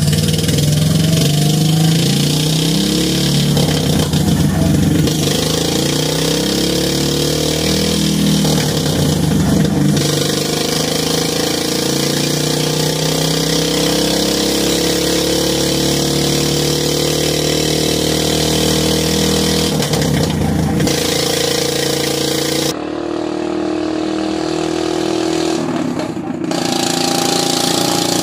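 Duromax 440 cc single-cylinder engine with a short open header, driving a small car, its pitch rising and falling as the throttle opens and closes. The sound changes abruptly about three-quarters of the way in.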